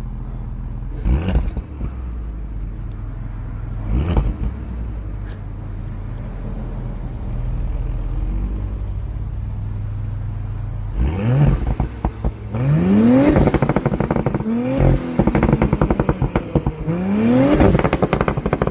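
Audi SQ5's tuned V6 engine idling with two short throttle blips, then from about eleven seconds revved four times. Each rev is followed by rapid crackles and pops on the overrun from its crackle-and-pop ECU tune, through the stock exhaust.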